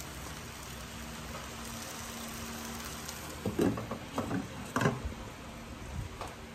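Pork pieces sizzling in hot oil in a stainless steel pot, searing before the stew is simmered. A few knocks and clinks come between about three and five seconds in as a glass lid is set on the pot.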